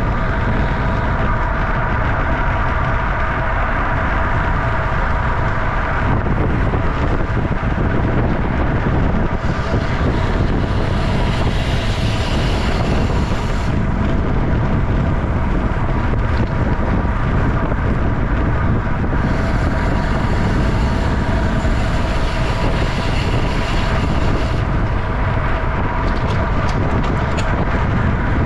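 Wind rushing over a racing bicycle's onboard camera microphone at about 25–30 mph, mixed with steady tyre and drivetrain noise on the asphalt. A few sharp clicks near the end.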